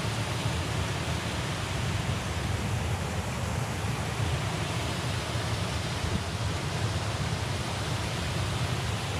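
Small woodland waterfall cascading over rocks into a creek pool, the water rushing steadily.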